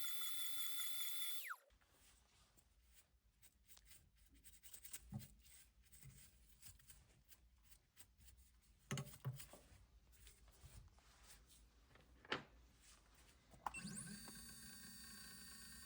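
CNC mill spindle running with a steady high whine that cuts off abruptly about a second and a half in. A quiet stretch follows with a few short knocks and clicks. Near the end the spindle starts again with a rising whine and settles to a steady run.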